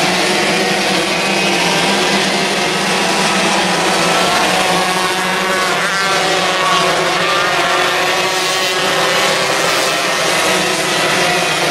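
Several 125 cc micro sprint cars racing on a dirt oval, their engines running together at high revs. About halfway through, the pitch of one engine bends as a car passes close.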